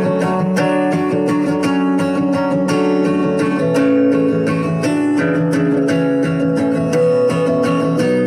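Background music: acoustic guitar playing steadily.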